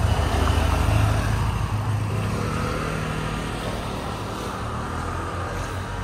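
Street traffic: a motor vehicle engine running close by, louder in the first two seconds and then easing off.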